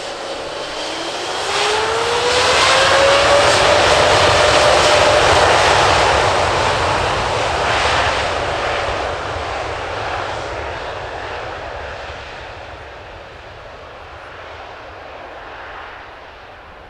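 Boeing 777-9's GE9X turbofan engines running on the runway: a whine rises in pitch over the first few seconds as the engines spool up, then the broad jet noise fades gradually.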